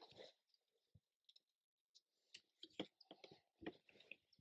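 Hand brace turning an auger bit into a wooden plank: faint, scattered clicks and crunches of the bit cutting into the wood, coming more often in the second half.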